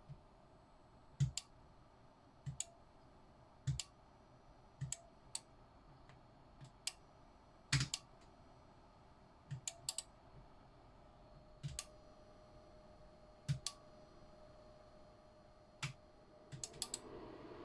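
Sharp clicks of the buttons and switches on a New Holland TF78 combine's control lever being pressed one at a time, single and double clicks every second or so, over a faint steady hum. Near the end a quick run of clicks comes with a rising hiss.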